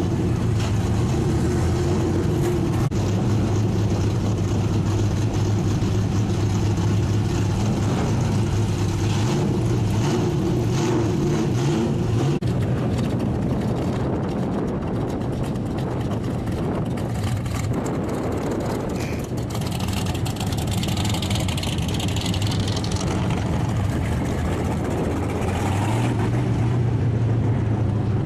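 Race car engines running loud as stock cars drive slowly past one after another. A steady engine note gives way to a rougher sound about halfway through, and a steady note returns near the end as another car comes close.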